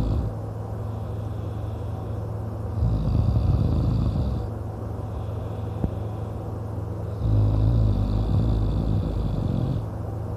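A man snoring loudly in deep sleep: two long snores, each about two seconds, roughly four and a half seconds apart, with quieter breathing between them.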